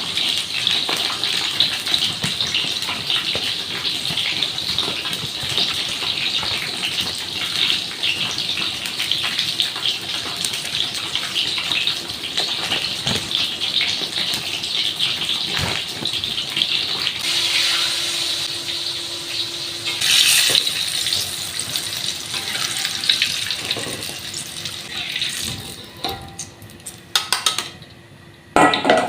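Water running steadily from a kitchen tap, thinning out and stopping near the end, followed by a few clinks.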